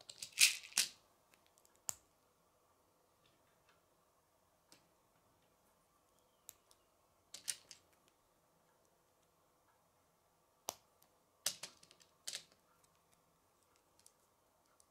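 K'nex plastic rods and connectors being handled and snapped together by hand: sharp plastic clicks in a few short clusters, the loudest just after the start, more about halfway through and again near the end, with quiet between.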